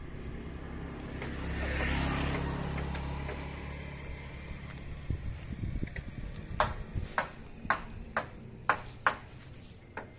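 A passing vehicle's engine swells and fades over the first few seconds. About halfway through it is followed by six sharp knocks or taps, roughly half a second apart.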